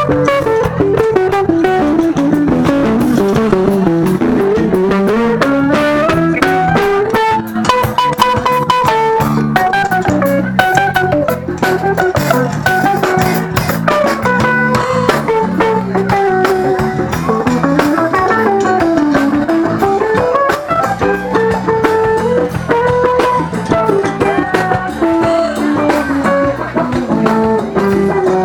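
Live band playing an instrumental: electric guitar carrying a melody that sweeps down and back up twice, over bass guitar and drum kit.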